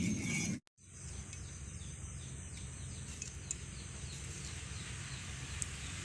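Rural outdoor background noise, steady and even, with a small bird's quick, high chirps repeating for a couple of seconds; a brief cut to silence comes near the start.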